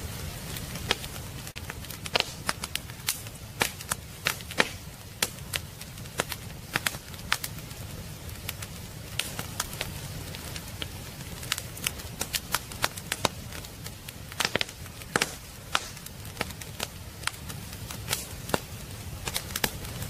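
Wood fire crackling in a fireplace: irregular sharp pops and snaps from the burning logs over a low steady rumble.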